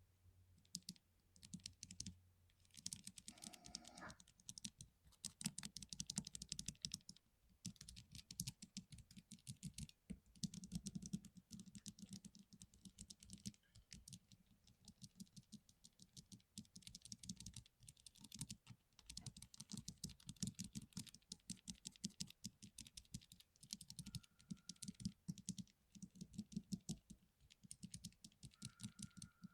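Typing on a lubed mechanical keyboard: fast runs of keystrokes with short pauses between them, each stroke giving a low sound under the click.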